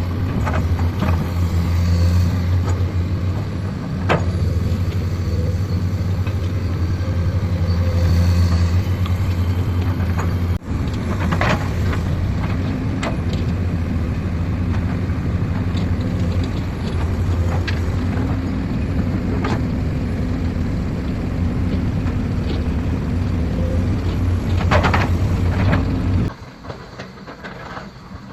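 Heavy diesel earthmoving machinery running steadily with a deep engine drone, punctuated by occasional sharp metallic clanks. The sound drops away sharply near the end.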